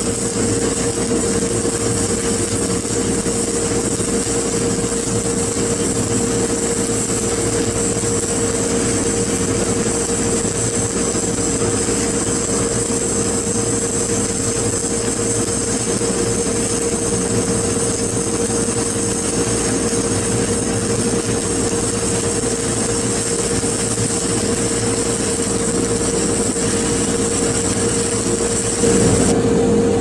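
Shielded metal arc (stick) welding with a hard-surfacing electrode: a steady, loud crackling hiss of the arc over a constant hum. The arc cuts off near the end.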